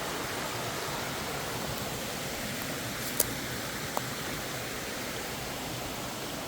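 Small creek waterfall, water pouring steadily down into a pool. A sharp click about three seconds in, and a fainter one about a second later.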